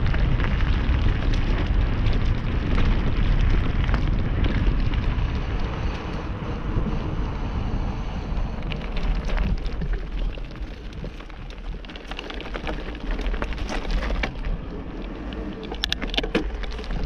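Wind rushing over the camera microphone together with mountain-bike tyres rolling on gravel-strewn asphalt on a descent, growing quieter as the bike slows. A run of sharp clicks and crackles comes near the end.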